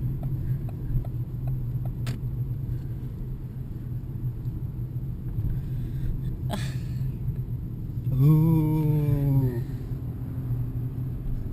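Steady low rumble of a car heard from inside the cabin, with a sharp click about six and a half seconds in and a drawn-out falling "ooh" near the end.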